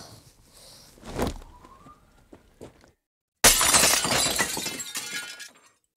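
A dull thump about a second in, then a glass window pane smashes with a sudden loud crash, shards tinkling as it dies away over about two seconds.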